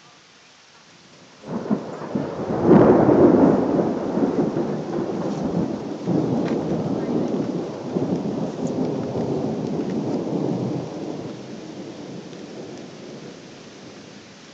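A loud roll of thunder. It breaks suddenly about a second and a half in, is loudest a second later, and rumbles on for several seconds before dying away near the end.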